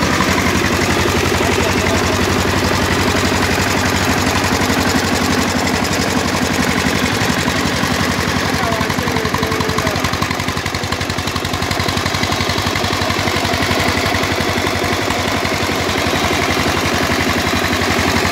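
Small locally built diesel engine running steadily at idle, with a fast, even beat.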